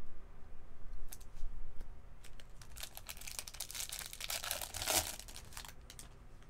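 Baseball card pack's wrapper torn open and crinkled, a rustle of about two seconds starting around three seconds in, with a few light clicks of cards being handled before it.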